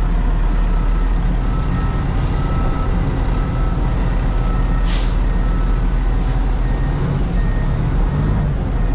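Heavy diesel truck engine running steadily, with a construction machine's backup alarm beeping about once a second through the first half. Three short hisses of air, the sharpest about five seconds in.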